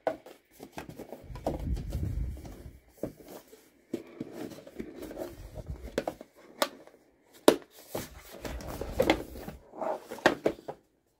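A white cardboard product box being handled and opened by hand: scraping and rustling as the box slides on a wooden desk and its lid lifts, with scattered sharp taps and clicks of cardboard.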